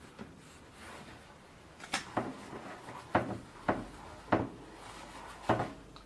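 Bicycle wheel with its tyre being handled and turned by hand on a workbench: about six sharp knocks and clicks at irregular intervals.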